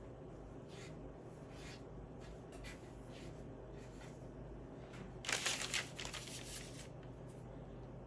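Soft rustling and brushing strokes of hands handling something, a few separate strokes in the first half, then a louder rustle lasting about a second and a half just past the middle, over a steady low hum.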